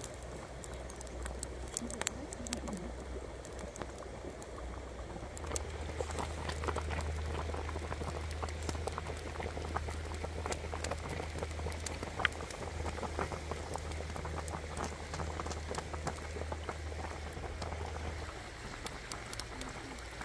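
Chicken and egg soup boiling hard in a large wok over a wood fire: a dense, continuous bubbling, louder and closer from about five seconds in, dropping away near the end.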